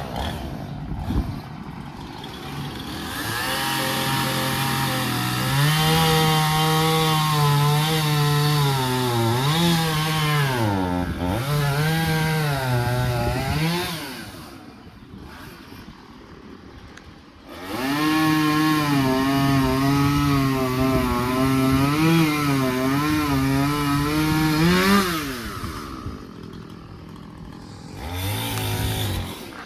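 Chainsaw cutting through fallen tree wood in two long cuts, its pitch wavering under load. Between the cuts, and again near the end, it drops back to a quieter idle, with a short rev-up just before the close.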